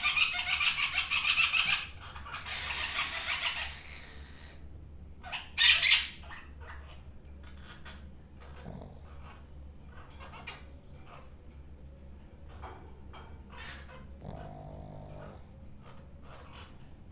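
Snoring: two loud, rattling snores in the first four seconds, then a short sharp sound about six seconds in and fainter, irregular breathing noises.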